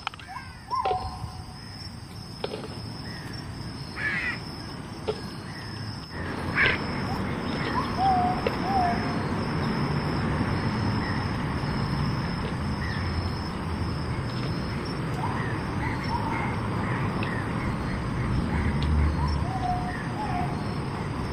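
Birds calling in short chirps that glide up and down in pitch, some in quick pairs, over a steady outdoor background hiss. There are a few sharp clicks in the first seven seconds.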